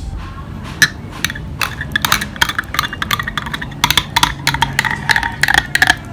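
A drink being stirred in a glass: quick, irregular clinks with a short ringing after each, coming faster from about four seconds in, over a steady low hum.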